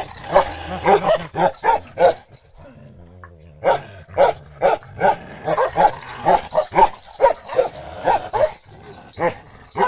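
Bakarwal dog barking repeatedly, two or three barks a second, with a pause of about a second and a half near the start.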